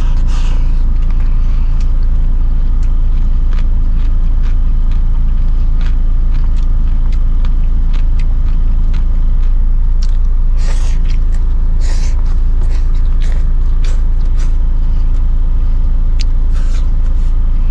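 Steady low rumble of a vehicle engine, with scattered short crunches and clicks of someone biting and chewing crisp-skinned fried chicken.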